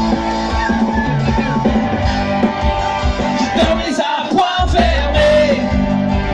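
Live rock band playing: a male lead singer over electric guitars.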